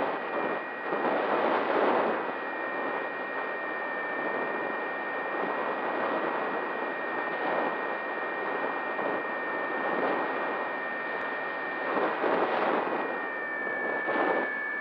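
Onboard-camera audio of a Bixler 3 electric model plane in flight: a steady high whine from the electric motor and propeller over rushing wind noise that swells in gusts a few times, the whine dropping slightly in pitch near the end.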